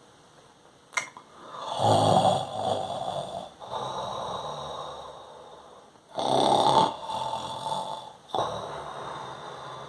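A man snoring loudly: two big rattling snores about two and six seconds in, each trailing into a long, quieter out-breath with a thin whistling tone, and a third breath starting near the end. A sharp click sounds about a second in.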